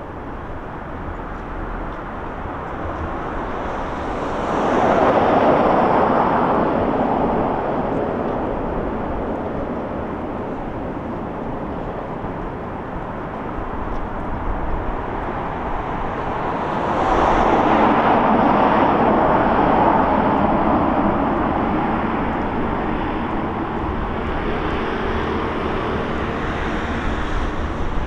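Traffic passing on a city street: two vehicles go by, one about four seconds in and a longer one near the middle, each swelling up and fading away over a steady street hum.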